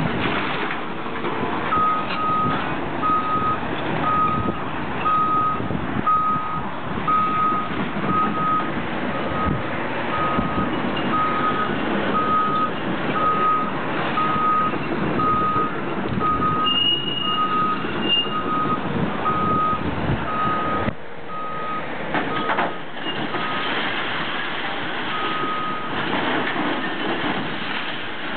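Travel alarm on a Cat tracked excavator beeping steadily, about one and a half beeps a second, as the machine tracks, over the diesel engine and the knocks of demolition debris. The beeping stops a few seconds before the end.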